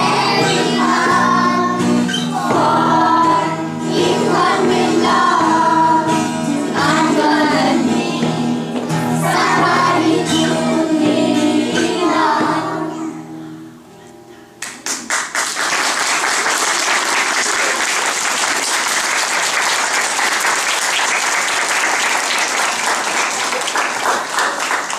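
Young children singing a song together over instrumental accompaniment; the song ends a little past halfway, and after a short pause the audience starts applauding and keeps clapping to the end.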